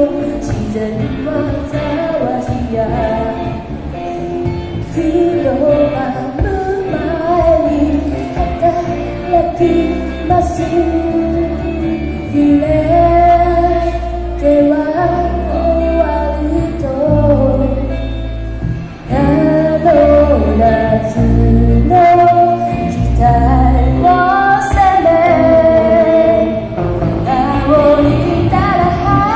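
Live band playing a song with a female lead singer.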